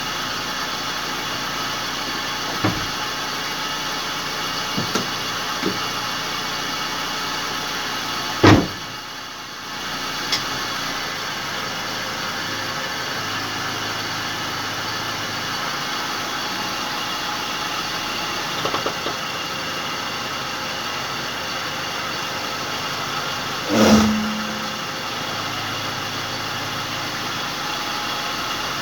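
Car engine running with the driven wheels hanging free and turning, a steady mechanical hum broken by a few sharp knocks, the loudest about a third of the way in and again near the end. The owner is chasing a ratchet-like knocking that he suspects comes from a failing right drive shaft (CV joint).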